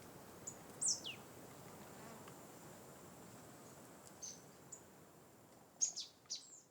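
Faint outdoor ambience of insects: a thin, steady high buzz over a soft hiss, with a few short, high chirps that sweep quickly downward, one cluster near the end. It fades out at the end.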